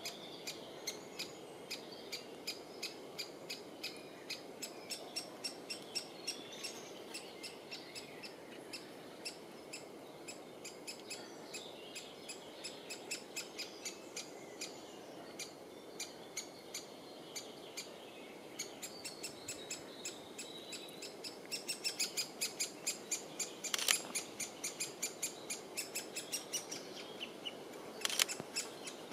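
A woodpecker nestling calling from its nest hole: a steady run of short, high, repeated calls, about two or three a second, that quicken and grow louder in the last third, with two sharper, louder calls near the end.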